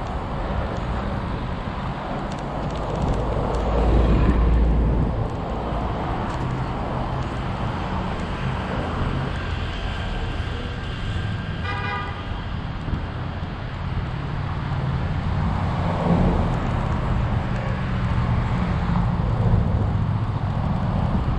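City traffic heard from a moving kick scooter: steady road and wind noise on the microphone, with vehicles passing close by, loudest about four seconds in. A brief car horn toot sounds about twelve seconds in.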